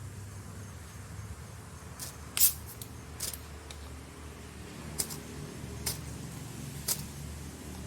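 Half a dozen sharp clicks and taps, irregularly spaced, the loudest about two and a half seconds in, over a steady low rumble.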